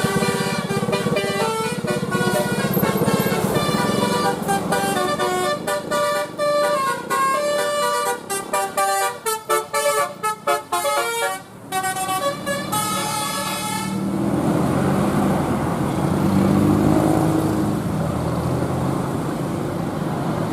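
Telolet basuri multi-tone bus horn playing a fast melody of separate notes, choppy and staccato about two-thirds of the way through. After about 14 s the horn stops and engine noise carries on.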